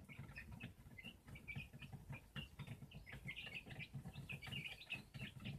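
Small flock of young Rhode Island Red and Golden Comet chickens peeping faintly: a steady run of short, high chirps.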